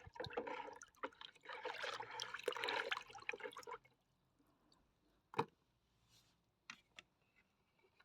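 Water splashing and trickling as freshly dug potatoes are rinsed, for about four seconds, followed by a few light knocks.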